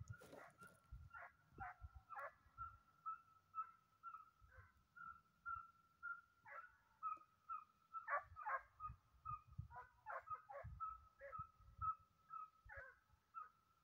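Faint, distant barking of hunting dogs on the trail: short repeated yelps about two a second, with louder clusters of barks now and then.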